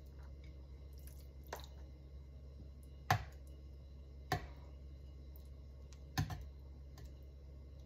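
Metal kitchen tongs clicking and tapping against a metal muffin tin as pulled pork is dropped into the cups: a faint tap about one and a half seconds in, then three sharper clicks a second or two apart, over a low steady hum.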